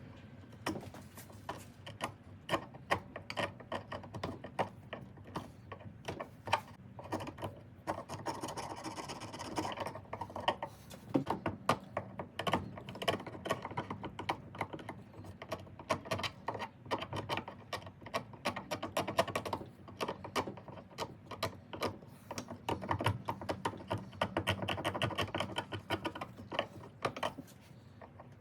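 Hand-tool work on a 1/2-inch ratchet handle: rapid, irregular clicking and tapping, with denser runs of quick clicks about eight seconds in and again from about twenty-three to twenty-seven seconds.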